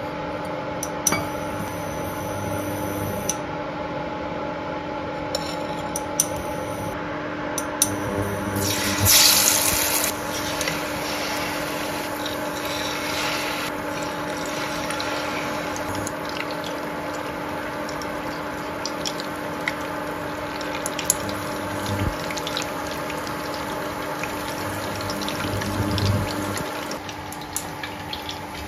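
Battered dory fish fillets deep-frying in oil in a stainless steel saucepan: a steady sizzle, with a loud burst of sizzling about nine seconds in as a fillet goes into the hot oil. Light clicks of utensils come and go, over a steady low hum.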